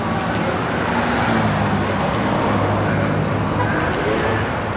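A motor vehicle engine running steadily, its low hum swelling about a second in and holding, with traffic noise around it.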